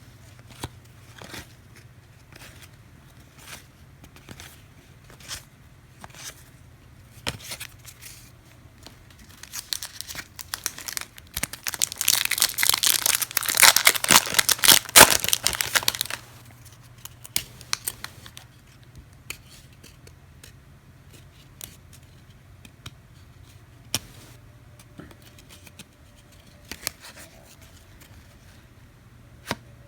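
A 1999 Skybox Thunder baseball card pack wrapper is torn open and crinkled for about six seconds around the middle. Before and after it come scattered light clicks and taps as cards are handled.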